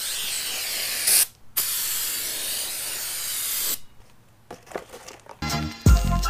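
Aerosol brake cleaner sprayed onto a new brake rotor in two long hissing blasts with a short break between. A few light knocks follow, and background music with a beat starts near the end.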